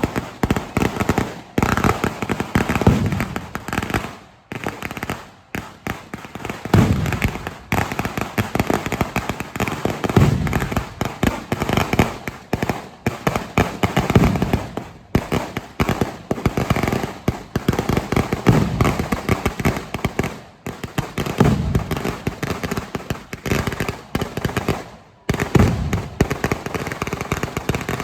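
Temple-festival firecrackers going off in a rapid, unbroken barrage: dense crackling reports with heavier, deeper bangs standing out every few seconds.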